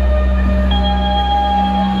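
Slow ambient music over an arena sound system: a deep bass drone under long held tones, with a new higher held tone coming in partway through.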